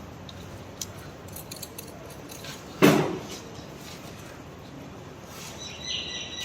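Metal surgical instruments clicking and clinking as they are handled, with one louder thump about three seconds in and a short high squeak near the end.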